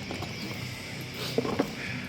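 A few light knocks from loose bicycle parts being handled during unpacking, about a second and a half in, over a steady low background.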